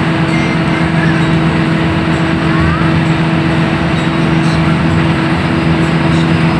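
Hino AK8 bus engine running steadily at cruising speed, heard from inside the cab, with a constant drone and tyre and road noise underneath.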